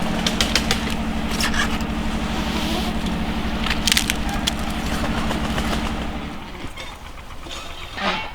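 A small engine running steadily with a low, even drone, then shutting off about six seconds in. Scattered sharp clicks and knocks run over it.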